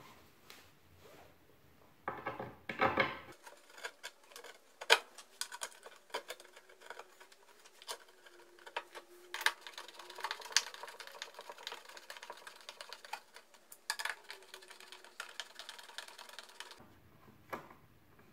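Confirmat screws being driven into the chipboard of a subwoofer box with a screwdriver bit. A small motor whines faintly, its pitch dipping and rising, over many rapid clicks.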